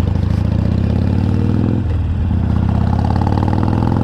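Harley-Davidson Iron 883's air-cooled V-twin engine running under way, with a brief drop in revs about two seconds in, then the revs climbing slowly again.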